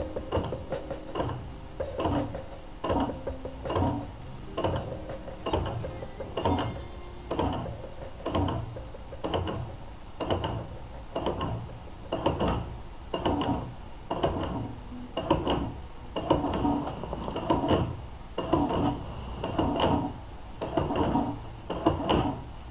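DIY force-feedback steering wheel's motor drive jerking the wheel in a steady rhythm under a force test, a mechanical whir and knock about every three quarters of a second.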